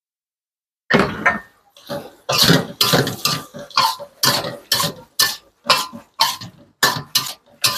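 Metal ladle scraping and knocking against a wok in quick stir-frying strokes, about two a second, starting about a second in.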